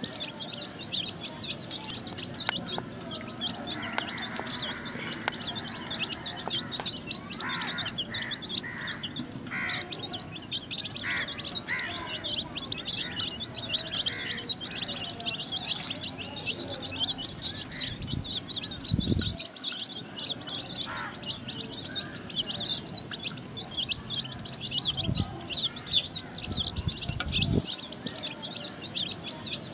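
Several young chicks peeping continuously, a dense stream of quick high chirps, with a few lower calls in the middle and some dull low thumps in the second half.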